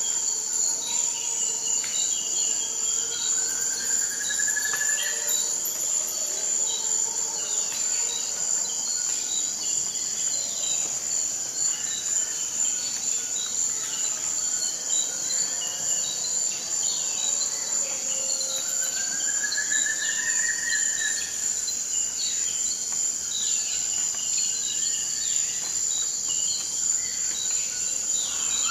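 Forest night-time insect chorus: a continuous high, steady trilling of crickets or similar insects, with scattered short chirps and calls over it. Twice, about 3 seconds in and again near the middle, a longer rising call sounds below the chorus.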